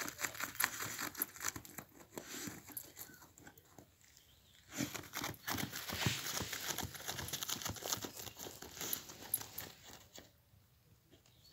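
Wire fox terrier digging in soil: fast scratching and scraping of its front paws, with dirt and grit scattering. It comes in spells, easing off about four seconds in and again near the end.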